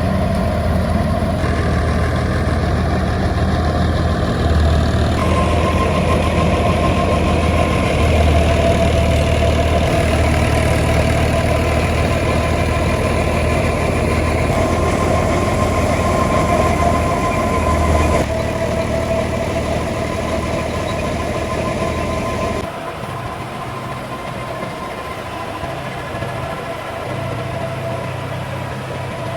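An engine running steadily, driving farm machinery, with a continuous hum whose tone changes abruptly a few times.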